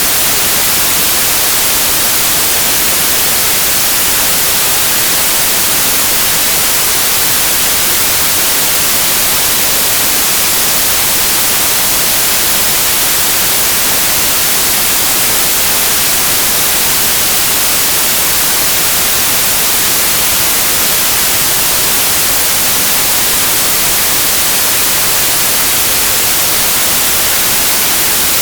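Loud, steady white noise: an even, unchanging hiss across the whole range, brightest in the highs.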